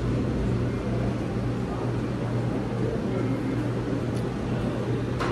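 Steady low mechanical hum of the dining room's machinery, with a few faint clinks of forks and knives on plates.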